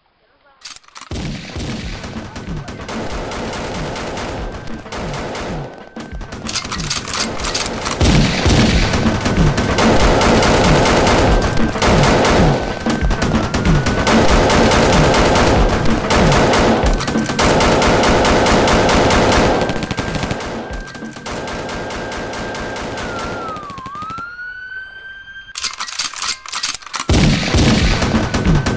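Long bursts of rapid automatic gunfire, a dubbed machine-gun sound effect, in several stretches with short breaks. A steady high tone runs over it, and in a brief lull near the end a whine dips and rises before the firing resumes.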